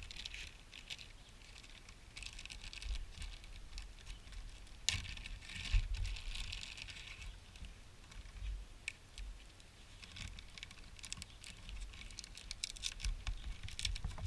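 Packaging being unwrapped and handled: irregular rustling and scratching with scattered light clicks, and a sharper click about five seconds in.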